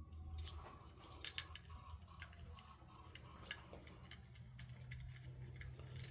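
Faint, irregular clicks and light taps of small metal parts and hand tools being handled while the throttle-body injector pod is worked apart, over a low steady hum.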